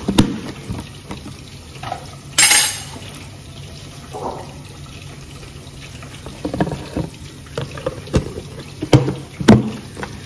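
Plastic food-storage containers being closed with snap-on lids and stacked. There is a short, loud crackle about two seconds in, and later a run of knocks and taps of plastic on plastic, the sharpest near the end, over a steady low hiss.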